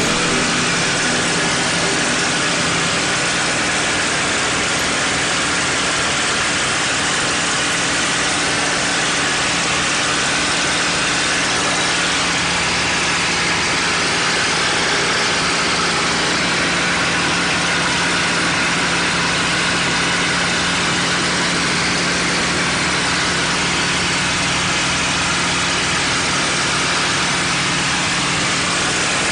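P-51 Mustang's Packard Merlin V-12 engine running steadily in flight, heard from inside the cockpit as a constant drone under a steady rush of airflow noise.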